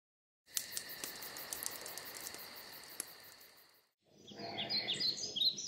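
Crickets chirping in a steady, fast-pulsing trill that stops after about three and a half seconds. Then songbirds chirping in short, quick rising-and-falling notes.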